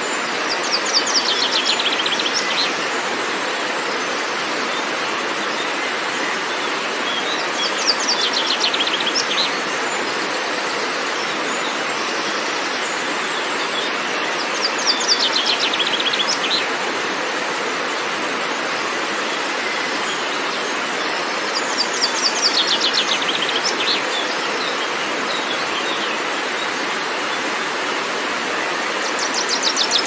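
Steady rush of a waterfall cascading over rocks. A songbird sings about every seven seconds, five times in all: each song is a quick run of notes that steps down in pitch.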